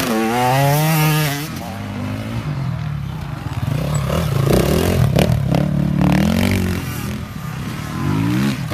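Enduro dirt bike engines revving up and down as the bikes pass close by one after another, with a second bike's engine rising over the first near the end. A brief clatter about five seconds in.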